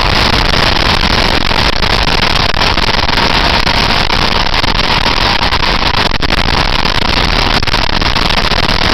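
Motorcycle ridden at road speed, heard from a camera mounted on the bike: a loud, steady, even rush of engine and wind noise.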